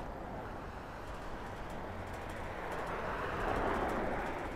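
Street traffic noise, with a passing vehicle growing louder to a peak about three and a half seconds in, then easing off.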